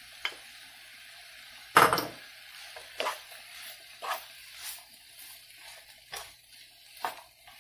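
A spatula stirring sliced carrots and mushrooms in a frying pan: a string of irregular scrapes and knocks against the pan, the loudest about two seconds in.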